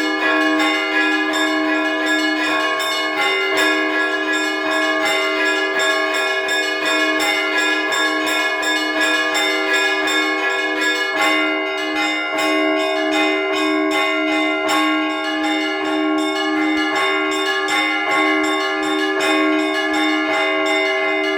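Russian Orthodox church bells rung in a trezvon: rapid, continuous strikes on the small bells over a deeper bell struck at an even beat, all ringing on together. The pattern shifts about halfway through.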